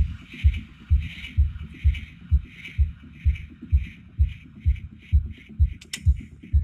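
Electronic soundtrack of a video-mapping show: a deep, even pulse about twice a second, with a pulsing higher layer in time with it, and a sharp click near the end.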